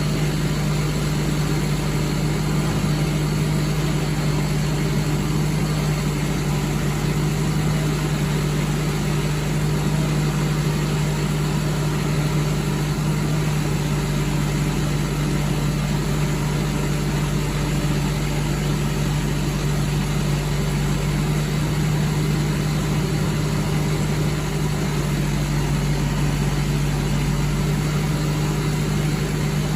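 Crane lorry's engine running steadily, an even low hum with one strong constant tone and no change in speed.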